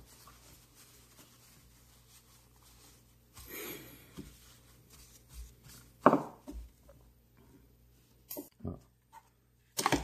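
Tissue paper rustling and rubbing as a Ronson gas lighter is wiped dry, with a sharp knock on the wooden desk about six seconds in and a few light clicks of handling near the end.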